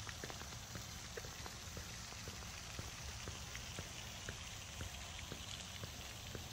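Walking footsteps, heard as a scatter of light irregular ticks over a steady low rumble of the phone microphone being carried.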